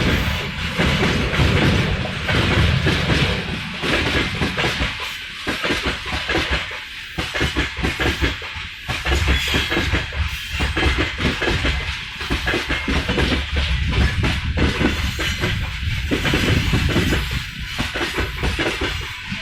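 Freight train wagons rolling past on the rails, their wheels clattering over the rail joints in a regular repeating rhythm, with background music mixed in.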